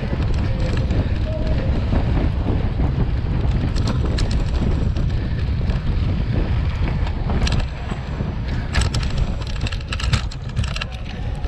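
Wind buffeting the microphone of a cyclocross bike's onboard camera, over the low rumble of knobby tyres rolling on dirt. From about seven and a half seconds in, quick clicks and rattles join as the bike runs onto a rougher, rutted dirt track.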